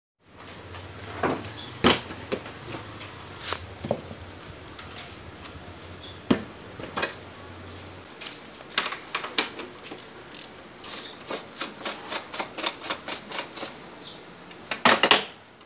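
Metal hand tools and parts clinking and knocking during motorcycle repair work, with a quick run of light clicks near the end. A faint low hum stops about halfway through.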